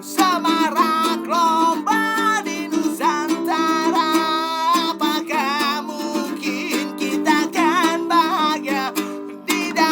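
Music: a plucked string instrument keeps up a steady accompaniment while a wavering melodic line with vibrato moves above it. The music dips briefly about half a second before the end, then resumes.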